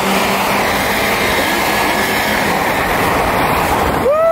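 Steady rush of wind and road noise through an open window of a car moving at speed. About four seconds in, the rush drops away and a voice lets out a long, high yell.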